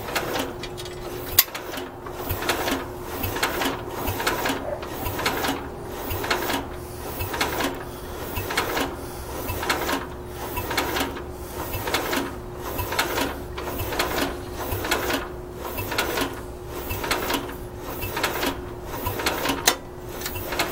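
Bolens 1050 garden tractor engine being cranked by its belt-driven starter-generator, a slow, even rhythm of strokes starting about two seconds in, without the engine catching. The belt isn't slipping, but the starter isn't spinning the engine over fast.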